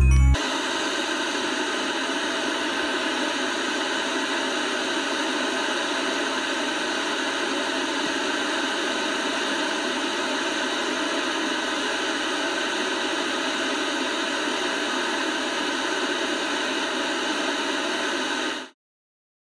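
Steady hiss of analogue television static (white noise), cutting off abruptly near the end.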